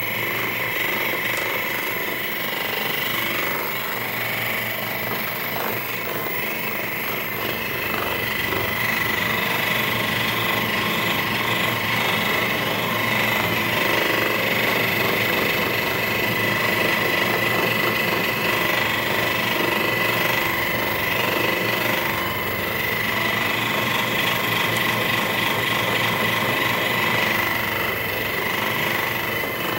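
Percussive massage gun running steadily, its head hammering rapidly into the muscles to loosen them up.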